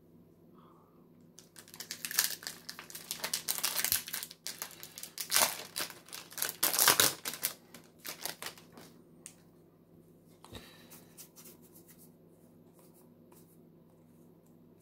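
A foil Magic: The Gathering booster pack wrapper being torn open and crinkled, from about a second and a half in until about nine seconds, then a few light rustles and a small knock.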